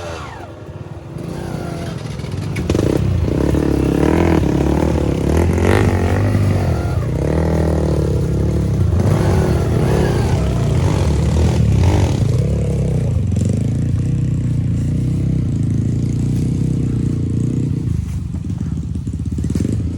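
Small petrol engine of a wood-cutting machine running at a low, rough idle, getting louder about two and a half seconds in.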